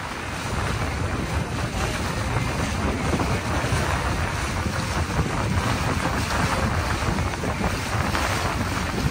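Wind buffeting the microphone on the deck of a moving sailing catamaran: a steady low rumble with a hiss over it.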